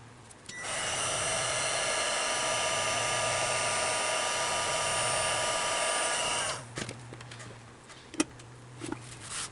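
Heat gun blowing for about six seconds, a steady fan rush with a whine, shrinking heat-shrink tubing over motor wiring. It switches on about half a second in and cuts off abruptly, followed by a few light clicks and handling knocks.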